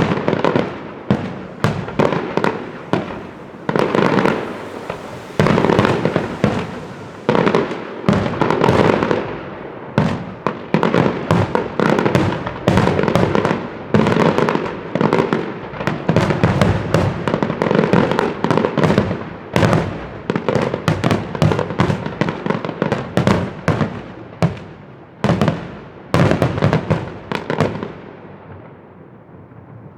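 Fireworks display: a dense, rapid run of sharp bangs and crackling reports, several a second, each trailing off in echo, thinning out near the end.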